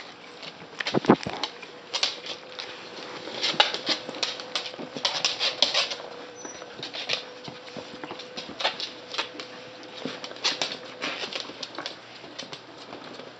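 West Highland white terrier puppies and an adult scuffling on a hardwood floor: claws clicking and feet pattering in quick irregular taps, with a louder knock about a second in.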